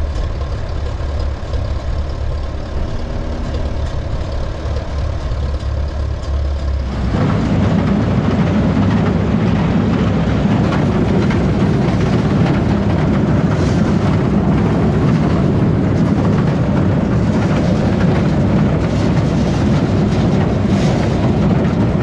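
Steady low hum of a Farmall B tractor engine driving a corn elevator; about seven seconds in, ear corn starts pouring out of a gravity box wagon onto the elevator's hopper and conveyor, and a loud, dense rattle of cobs and kernels sets in and carries on over the engine.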